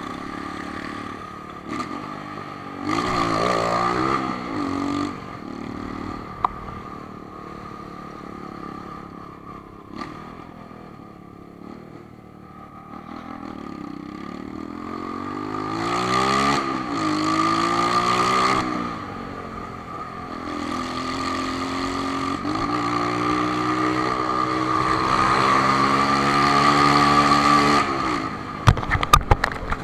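Honda CB1000 inline-four motorcycle engine being ridden, its pitch rising and falling as the throttle is opened and closed. A steady high-pitched whine runs alongside it. A few sharp clatters come near the end.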